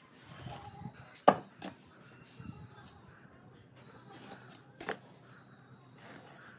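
Sharp knocks as a metal speed square is set down and shifted on a pine block, the loudest about a second in and another near the end. Between them come short scratchy strokes of a pen drawing marking lines.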